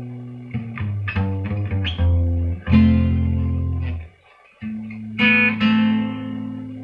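Acoustic-electric guitar strummed through a lead guitar amplifier turned up full, its chords ringing with strong low notes; the sound drops out briefly a little past the middle, then a last chord rings out and fades. The repaired pickup is now carrying the guitar, low string included, to the amp.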